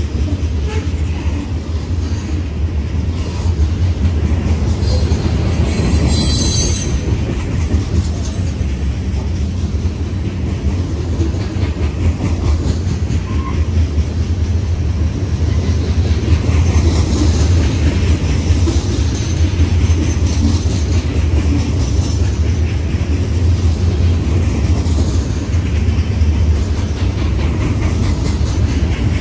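Freight cars, mostly covered hoppers, rolling past at trackside with a steady low rumble of steel wheels on rail. A brief high-pitched wheel squeal comes about six seconds in.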